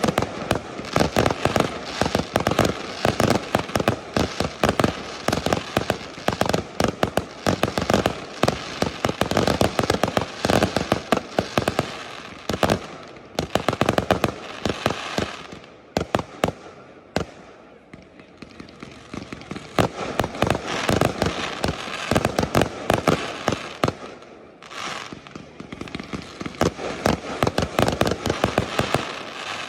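Fireworks display: a dense run of sharp firework bangs and crackle, easing off for a few seconds about halfway through and then building up again.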